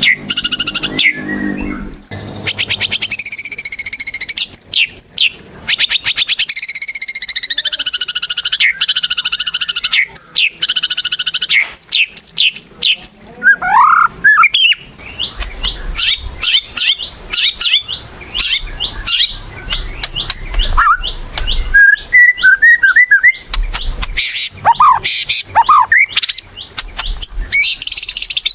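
White-rumped shama (murai batu) singing a loud, varied song: held whistled phrases, rapid rattling trills and sharp rising notes.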